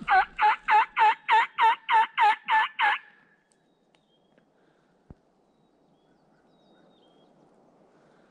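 Hen-turkey yelps from a hunter's mouth call: a loud run of eleven evenly spaced yelps, about three and a half a second, that stops after about three seconds.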